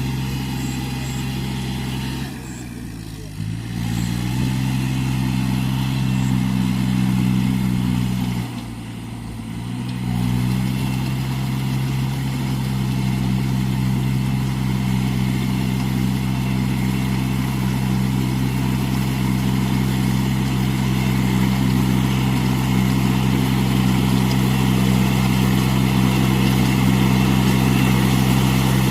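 Iseki NT540 tractor's diesel engine running steadily. Twice, about two and about eight seconds in, its note dips and quietens for a second or so, then picks back up.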